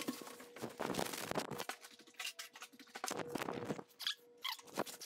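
Hands moving a large cardboard box on a wooden table: soft scrapes, rubs and light taps, with a few small clicks near the end.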